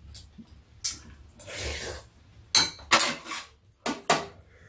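Metal spoons and chopsticks clinking against bowls and dishes during a meal: several sharp clinks, most of them in the second half.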